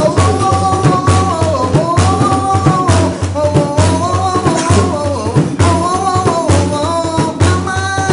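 A man singing a Rif Amazigh izran song, accompanying himself on a hand-held frame drum struck in a steady beat of about two to three low strokes a second.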